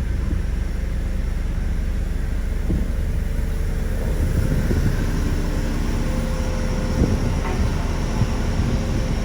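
Diesel engine of heavy construction machinery running steadily, with occasional knocks and rattles.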